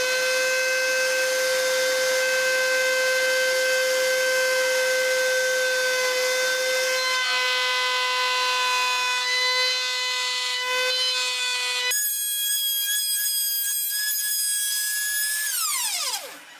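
Felder K500S table saw running with a steady whine while its blade is raised up through a blank zero-clearance insert, cutting its own slot. The sound changes abruptly about twelve seconds in, and near the end the pitch falls quickly as the saw winds down.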